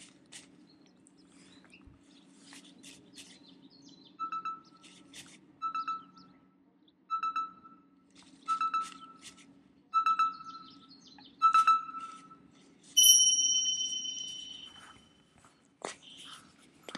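Edited-in sound effect: short electronic beeps about every second and a half, getting louder, then a single bright chime that rings and fades.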